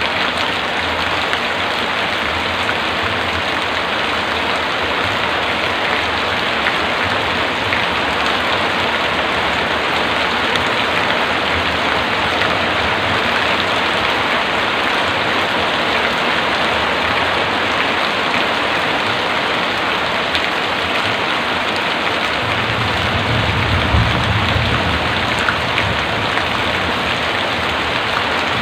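Heavy rain falling steadily, with a low rumble for a few seconds near the end.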